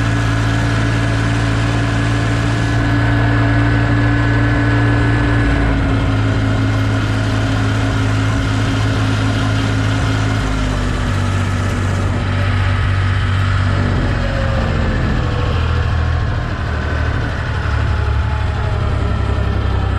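Holder A45 tractor engine running steadily, its speed easing off a little partway through.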